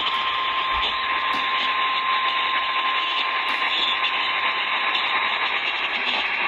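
Steady radio static hiss from an alert receiver, with a faint steady tone at about 1 kHz under it that fades out about five seconds in.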